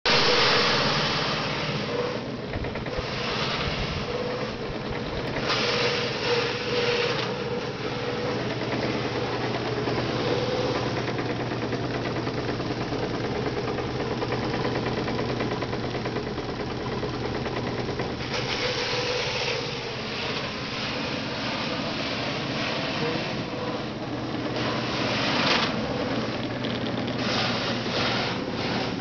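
Motor-driven lechuguilla fibre-stripping machine running with a steady hum, with louder, hissier stretches every few seconds as leaves are worked through it.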